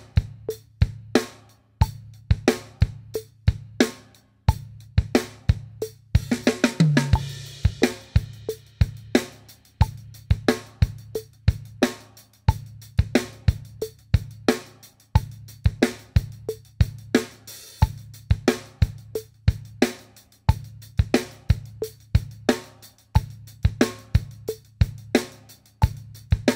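Drum kit playing a rock-pop groove: bass drum on the 1, the 'a' of 1, the and of 2 and the and of 3, snare backbeat on 2 and 4, over a steady hi-hat. There is a cymbal crash about six seconds in, and the hi-hat later plays in sixteenth notes instead of eighths.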